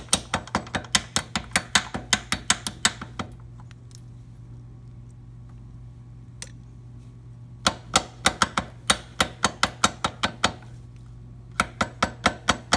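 Rapid light hammer taps on the steel pivot pin of a Buell XB Lightning's footpeg, about four a second in three bursts with a pause of a few seconds after the first, as the pin is driven toward its hole in the peg mount. The pin is not going in easily.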